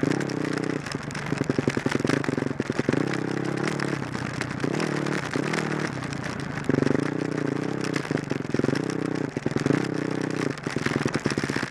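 Dirt bike engine being ridden over a rough trail, the throttle opened and closed again and again in short surges. Near the end it settles into a steady, even beat at low revs.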